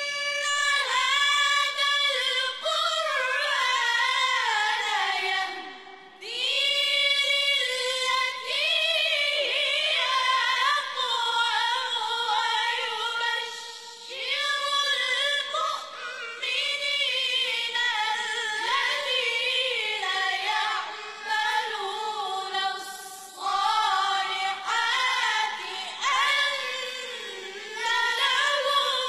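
A choir of boys singing an Islamic devotional chant in unison, unaccompanied, in long ornamented phrases with brief breaks between them.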